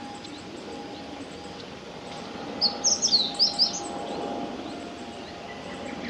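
Meadow bunting song: a quick phrase of short, high notes about two and a half seconds in, lasting about a second. Faint calls from other birds sound around it.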